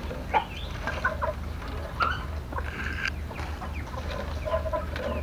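Thin bamboo strips rustling and clicking against each other as they are woven by hand. Short bird-like calls come in the background every second or so, the sharpest about half a second in.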